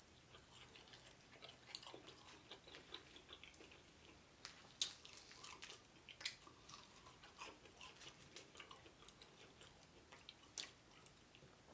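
Faint chewing and mouth sounds of someone eating fried chicken: scattered soft clicks and smacks over near silence.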